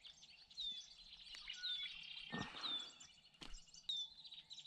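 Songbirds calling faintly, with short high chirps that slur downward repeated every second or so, among other brief calls. A couple of soft knocks sound around the middle.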